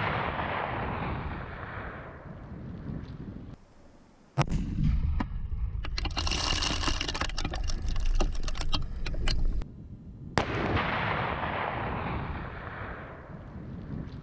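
Controlled detonations of mines and artillery shells: the fading rumble of one blast, then two more blasts about four and ten seconds in, each a sharp crack followed by a long rolling rumble. The first of these is followed by several seconds of crackling.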